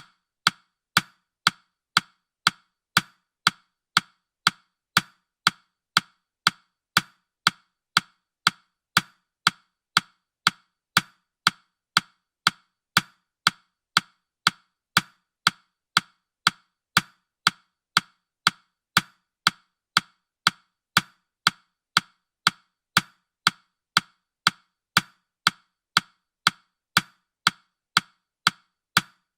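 Countdown timer's clock-tick sound: short, sharp, wood-block-like ticks, steady and evenly spaced at about two a second.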